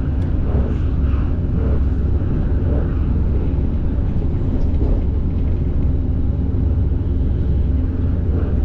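Moving train, a steady low rumble.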